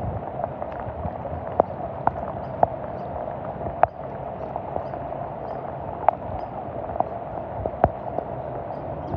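Steady rain falling on a flooded street, with irregular sharp taps of drops landing close by.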